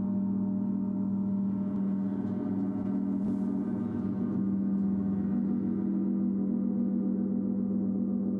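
Large gong played in a huge, sustained wash of many overlapping ringing tones over a deep hum, holding steady throughout.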